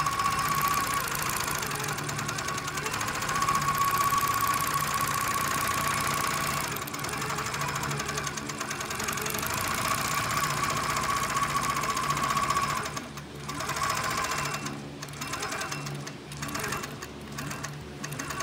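Longarm quilting machine stitching through a quilt, the needle running fast and steady with a constant high whine. In the last third the stitching briefly drops away several times.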